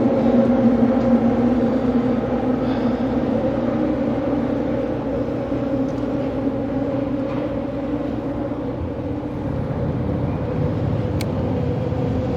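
A fishing boat's engine running with a steady drone and a constant pitched hum. There is a single sharp click near the end.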